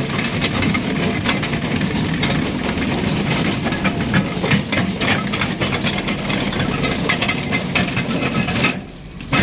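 Doosan 490 excavator's diesel engine running steadily, with a low hum and many small rattles and clicks. The sound drops away sharply for about half a second near the end.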